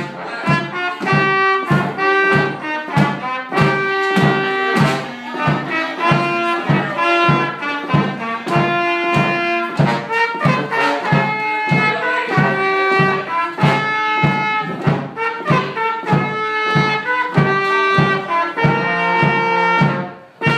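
Small oompah band of clarinet, trumpet, trombone and bass drum playing a tune over a steady, even beat. The tune ends just before the close.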